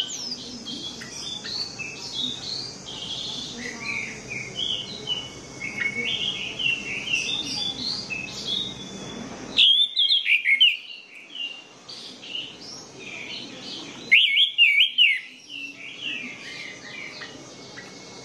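Orange-headed thrush singing a long, rapid song of short varied whistled and chattering notes with hardly a pause. The low background noise under the song cuts out abruptly twice.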